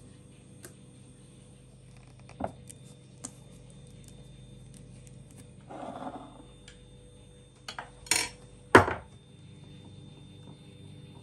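Glass jars being handled on a stone countertop: scattered light taps and a brief rustle, then two sharp clinks of glass set down on stone, the second the loudest.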